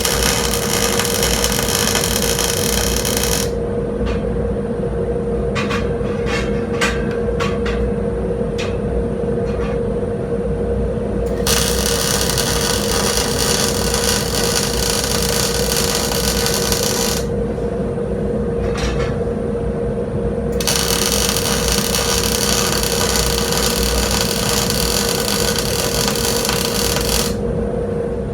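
MIG welder arc crackling and hissing in three long welds that start and stop abruptly. A few sharp clicks come in the pause between the first two welds, over a steady hum from the shop equipment.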